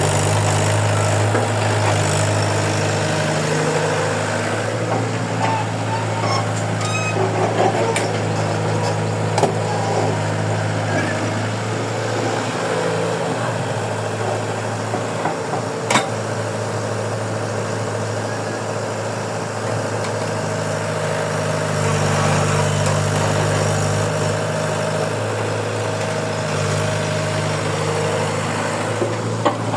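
Heavy diesel engine running steadily, with a few sharp knocks.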